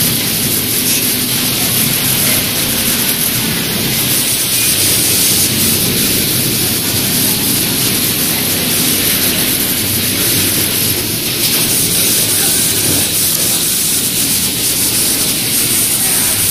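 Industrial automatic pattern sewing machine running steadily, a loud, even mechanical hiss and hum with no breaks.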